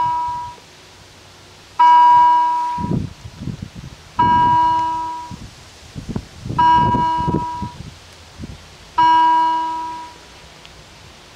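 Level-crossing warning bell striking single slow strokes, about one every two and a half seconds, each ringing out for about a second: the crossing is activated, warning of an approaching train.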